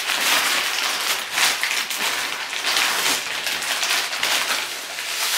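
Plastic packaging rustling and crinkling continuously as hands dig through a black plastic mailer bag and pull out a squishy toy in its clear plastic wrapper.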